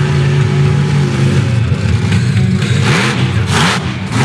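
Bigfoot monster truck engine revving hard as the truck accelerates, its pitch swinging up and down from about halfway. Near the end come several short loud crunching bursts as the truck drives up onto a row of scrap cars and crushes them.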